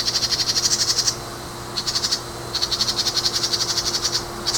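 A small animal, which the uploader calls a bird, gives rapid, high-pitched trills. They come in repeated bouts of about half a second to a second and a half, with short pauses between them.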